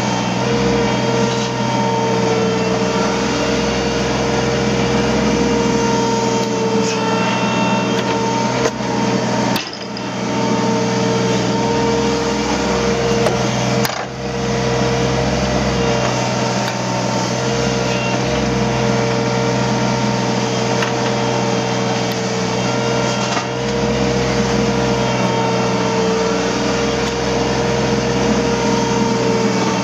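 Hydraulic excavator running steadily at work: diesel engine drone with a steady high hydraulic whine over it, dipping briefly twice.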